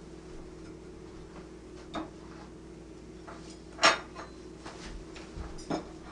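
A few sharp clinks of cutlery against dishes, the loudest about four seconds in, over a steady low hum.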